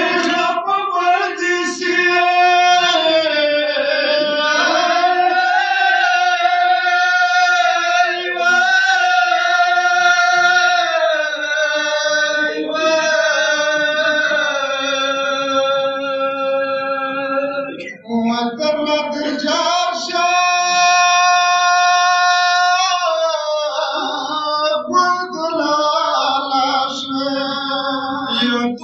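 A Pashto noha, a Shia mourning lament, sung unaccompanied in long held melodic lines, with a short break about 18 seconds in.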